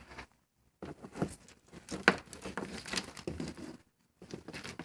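Irregular crinkling and rustling with small plastic clicks as a headlight wiring harness and its connectors are handled.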